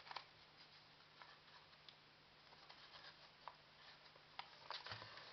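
Faint, scattered crinkles and ticks of a narrow strip of Japanese patterned paper being folded and creased by hand, with a small cluster of them near the end.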